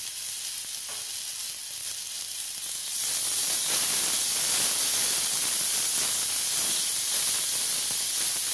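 Chopped onions and green chillies frying in hot oil in a kadai, with a spoonful of ginger-garlic paste just added: a steady hissing sizzle that grows louder about three seconds in.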